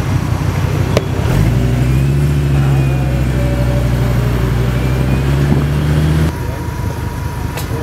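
Old car's engine idling steadily with a low, even hum. The sound drops off abruptly about six seconds in.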